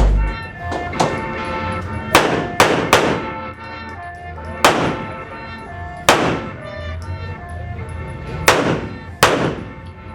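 Handgun shots fired in an irregular string during a shooting stage, about seven in all, including a quick group of three: each a sharp crack with a short ringing decay. Background music with steady tones plays underneath throughout.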